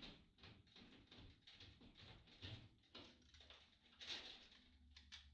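Near silence, with faint quick rustling ticks several times a second.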